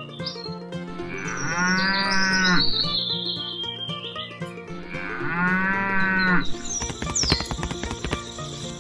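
Cow mooing twice, two long calls a few seconds apart, over light background music; near the end comes a rapid run of clicks.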